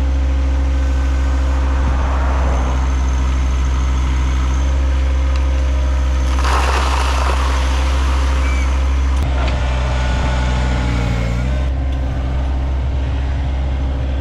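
John Deere 1023E subcompact tractor's three-cylinder diesel engine running steadily under work, with a burst of noise lasting a couple of seconds about halfway through.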